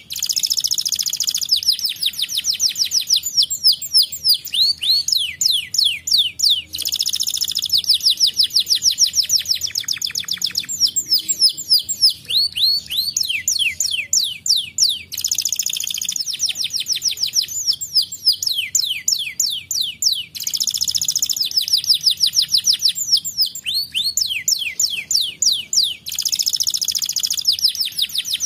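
Domestic canary singing without pause: fast trills of rapidly repeated falling notes, broken every few seconds by denser, buzzier rolls.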